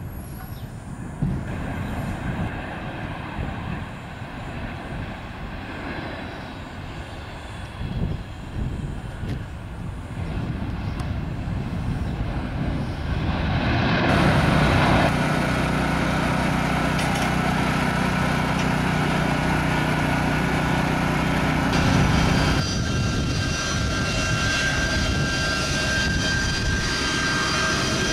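Jet airliner landing: a steady jet engine rush grows as it approaches, then jumps louder about fourteen seconds in as it touches down and rolls along the runway. It then holds as a loud, steady engine noise with high whining tones.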